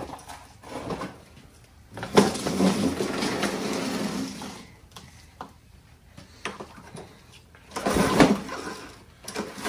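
Briggs & Stratton mower engine cranked with its recoil pull-start cord, turning over on compression but not firing. The cranking comes in separate noisy bursts, the loudest near the end.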